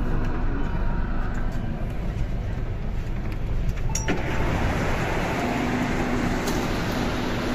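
MTR Kwun Tong Line C-train standing at a station platform, with a steady mechanical background. About four seconds in there is a sharp click and the noise grows fuller, as if the doors opening let the platform sound in. A steady low hum sets in a little later.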